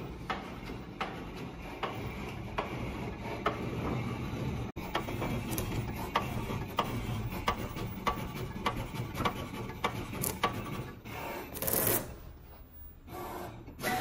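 Roll-to-roll digital label cutting and finishing machine running, with a steady low hum of its rollers and drive and frequent sharp clicks and ticks from the moving mechanism. There is a louder noisy burst a little before the end, then a quieter stretch.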